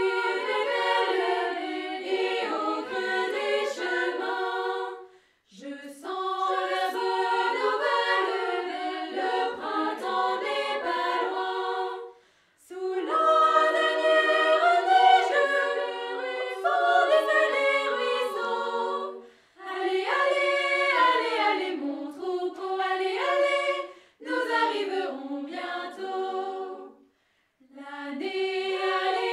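A scout choir singing a cappella in several-part harmony. The song comes in phrases separated by short pauses for breath.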